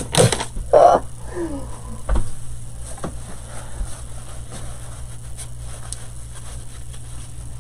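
Paper towel rustling faintly as hands are wiped with it, over a steady low hum, with a short click about two seconds in.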